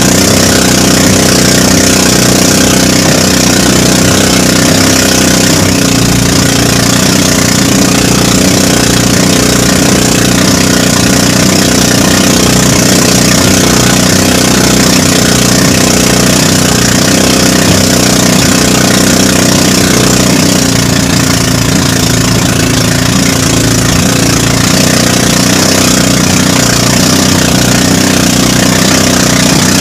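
Small outrigger boat's engine running steadily under way, with water spray hissing against the hull. It dips slightly in level a little past the middle.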